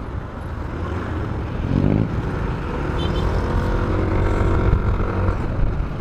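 Yamaha motor scooter riding in traffic: its engine runs under a steady rumble of road and wind noise, with a clear steady engine note coming up over it for a few seconds in the middle.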